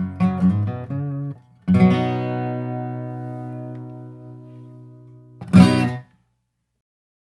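Acoustic guitar playing a quick run of notes, then a chord struck about two seconds in and left ringing as it slowly fades. Near the end one short, loud strum that cuts off abruptly.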